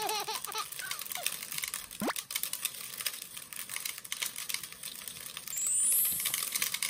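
Shih Tzu mix licking and picking spilled raw rice grains off a wooden floor: a quick, continuous run of small wet clicks. An added sound effect, a single rising whistle, comes about two seconds in, and a rising sparkly chime near the end.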